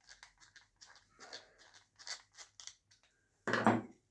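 Small parts of a die grinder clicking and scraping as they are handled and pushed into place, with one louder, brief knock about three and a half seconds in.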